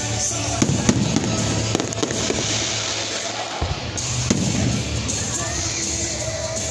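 Aerial fireworks shells bursting in a series of bangs, with music playing underneath.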